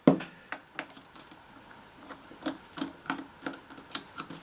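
Light, irregular clicks and taps of small metal carburetor parts being handled, with a sharper click at the start.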